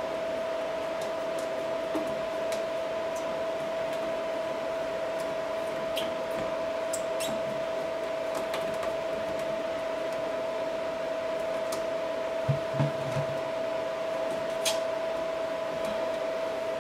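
Faint clicks and a few low knocks of hands working at a washbasin drain pipe, the knocks bunched in the last third, over a steady mechanical hum with a hiss.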